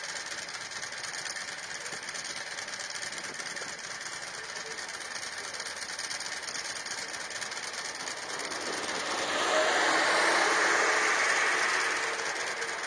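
Steady running noise of a vehicle on the move, which swells noticeably louder for about three seconds near the end before settling back.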